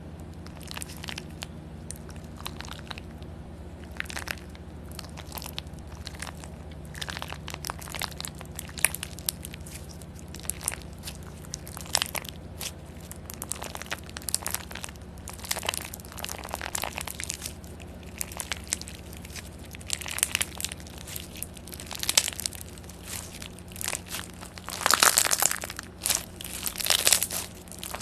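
Slime being squeezed and pressed by hand, giving irregular crunching and crackling that grows louder and denser near the end. A faint steady low hum runs underneath.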